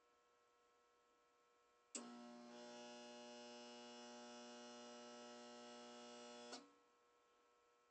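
Whirlpool ACQ122XK0 window air conditioner's compressor trying to start and failing. A loud electrical hum comes on suddenly about two seconds in, holds steady for about four and a half seconds, then cuts off with a click, leaving the unit's faint background hum.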